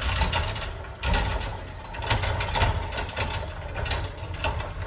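McNeilus ZR automated side-loader garbage truck's arm lifting and tipping a blue recycling cart, with a run of clattering knocks over the truck's engine running.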